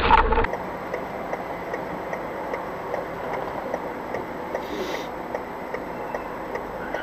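A car's turn-signal indicator ticking steadily, about two ticks a second, over steady engine and road noise in the cabin. A louder sound breaks off abruptly in the first half second, before the ticking.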